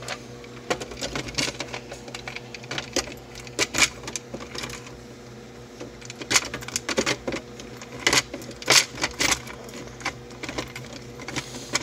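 Plastic dash trim panel being handled and pushed into place, with loose screws rattling on it: irregular clicks, taps and knocks, some sharp and loud, over a steady low hum.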